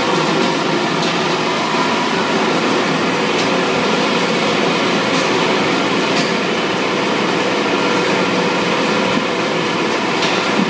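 Meat grinding line machinery running steadily: plastic modular-belt conveyor and drive motors, with a few faint clicks.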